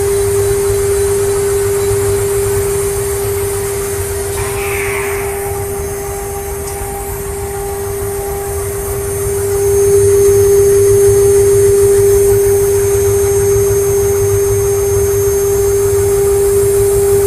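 CNC router spindle running with a steady single-pitched whine as a fine engraving bit cuts checkering into a wooden gun stock. It gets quieter for a few seconds midway and louder again about ten seconds in.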